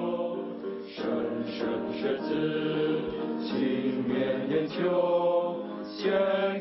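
A group of schoolboys singing together as a choir, most likely their school song.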